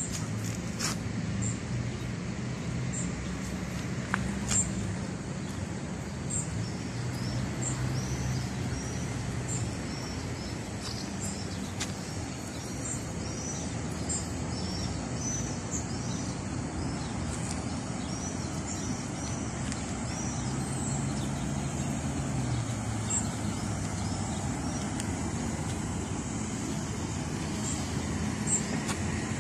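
Steady hum of nearby road traffic, with engine drone rising and falling as vehicles pass, and small birds chirping repeatedly over it.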